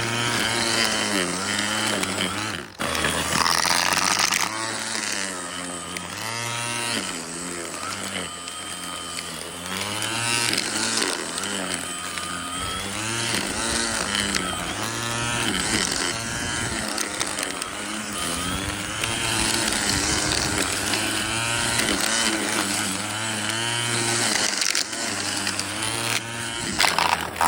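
Ryobi 18-volt cordless string trimmer on its wheeled mowing deck running while cutting grass, its motor pitch rising and falling as the line meets the grass, with a brief drop about three seconds in.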